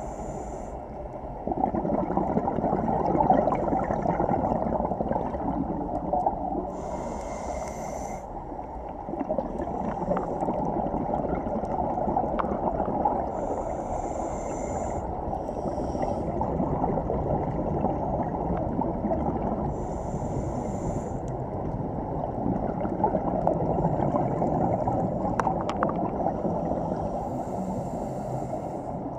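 Scuba regulator breathing heard underwater: a short hiss on each inhale about every six to seven seconds, and between them the muffled, gurgling rumble of exhaled bubbles.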